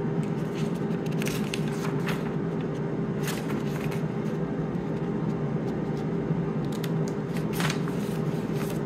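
Cosori air fryer running with a steady fan hum while it cooks. A few short papery rustles, about four, come from the pages of its instruction manual being handled.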